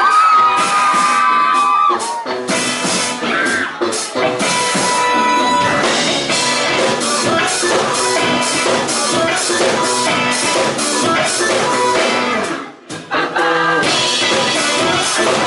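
Rock band playing with drum kit and guitars, with a short break about thirteen seconds in.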